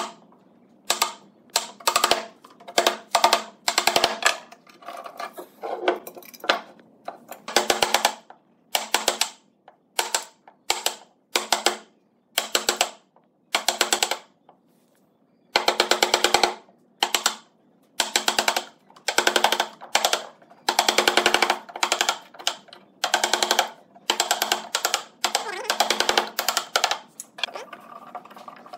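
Runs of rapid wooden-mallet blows on a wood chisel, chopping a mortise into a wooden beam. The knocks ring with the beam's resonance and come in bursts of half a second to two seconds with short gaps, then turn quieter near the end.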